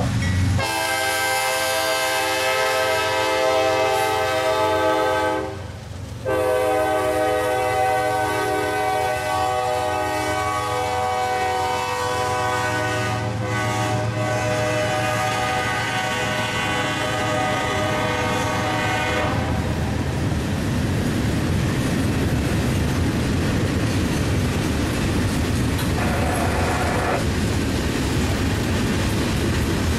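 Freight locomotive's multi-chime air horn sounding a blast of about five seconds, then after a short break a long blast of about thirteen seconds. After the horn, freight cars roll past with a steady rumble and clickety-clack of wheels over rail joints.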